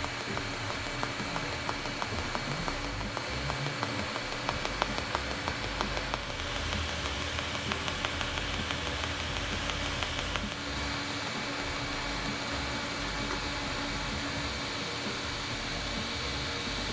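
TIG welding arc joining a stainless steel cleaver body to a high-carbon steel blade: a steady hiss, with fine crackling through the first several seconds.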